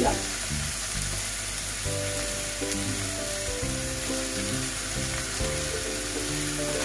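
Prawns and taro stolons sizzling in oil in a steel wok as the prawns are dropped in by hand. Background music of slow held notes plays along.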